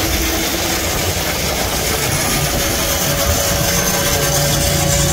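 Grain auger running steadily as it carries durum seed through the seed treater, a constant mechanical hum.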